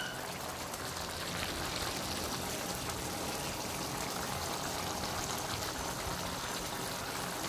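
Pork menudo stew simmering in its pan: a steady, even hiss of bubbling sauce.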